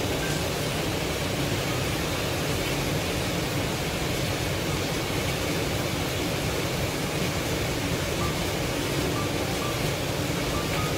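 Steady, even hiss that does not change in level, with a few faint short high peeps here and there.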